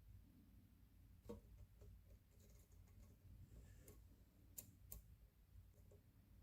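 Faint, irregular clicks of a lock pick working the wafers inside a MIWA DS wafer lock under very light clockwise tension, about five small ticks in all.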